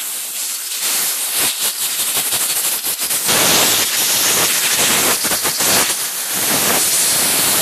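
Compressed air hissing from a brass air-compressor blow-gun nozzle as it is blown through a trimmer muffler's cleaned spark arrester screen, growing louder about three seconds in.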